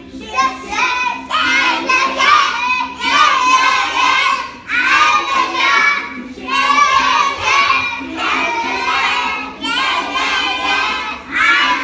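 A group of five-year-old children singing an English action song together in short phrases over a backing music track.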